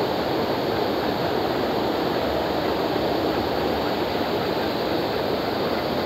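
Steady rush of falling water from an artificial waterfall.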